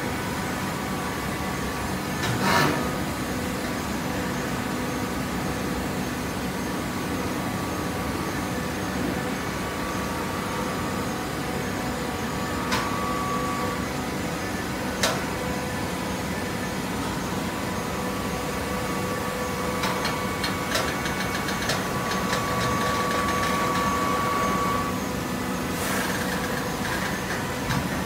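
TCM horizontal hydraulic baler running: a steady hum of its hydraulic power unit, with a few sharp knocks and clicks scattered through. A higher whine grows louder a little past twenty seconds and stops shortly before the end.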